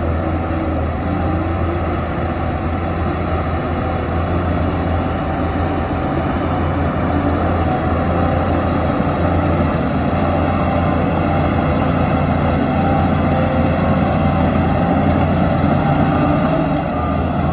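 Diesel engine of heavy earthmoving machinery running steadily with a deep hum, growing slightly louder in the second half.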